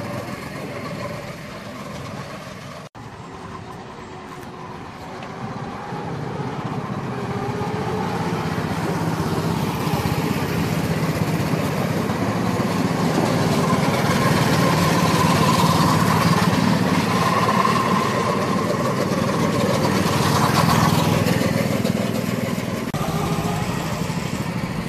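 Several go-kart engines running as the karts drive round the track, growing louder from about five seconds in and loudest through the middle before easing off near the end. The sound drops out briefly about three seconds in.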